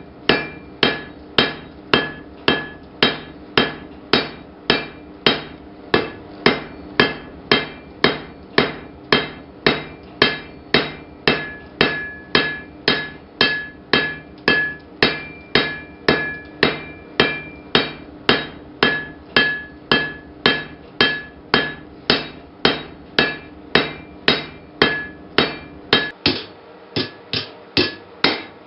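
Blacksmith's hammer forging iron on an anvil: steady, even blows about two a second, each with a brief metallic ring.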